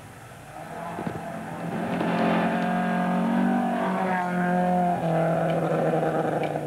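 Rally car engine at high revs, growing loud as the car approaches and passes close, with a short break in the engine note about five seconds in.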